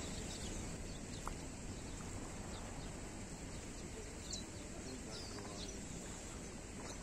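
Outdoor ambience: scattered short, quick chirps of small birds over a steady low rushing noise.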